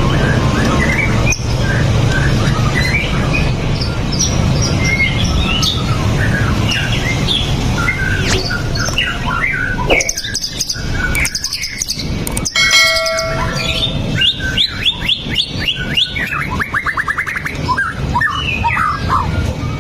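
White-rumped shama (murai batu) singing a fast, varied song of whistles and chirps, with a rapid run of repeated rising notes in the second half. A low steady hum lies under the first half.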